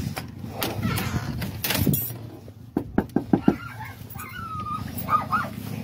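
A storm door is opened with a click of its latch, then knuckles rap quickly about five times on a wooden front door. About a second later a dog behind the door starts whining and yipping.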